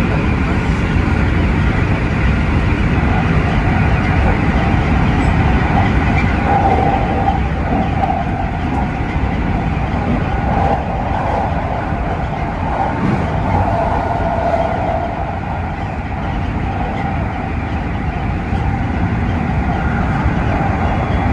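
Keikyu 1000 series electric train running along the line, heard from the driver's cab: a steady rumble of wheels on rail with a wavering whine over it.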